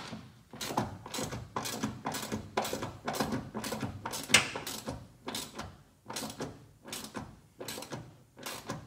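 Repeated metallic clunks and rattles, about one or two a second, from a pickup's bed rail and toolbox mounting being worked by hand.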